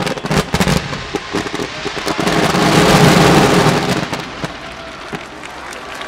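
Aerial firework shells bursting: a quick run of sharp bangs, then a dense crackling rush that swells to its loudest about three seconds in and dies away.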